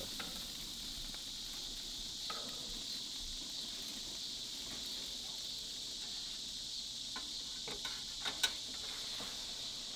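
A steady, high-pitched chorus of crickets chirring, with a few light clicks of metal tongs against the grill tray near the end.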